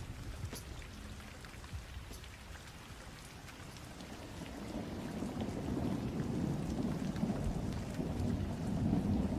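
Rain falling, with a low rumble of thunder that swells over the second half.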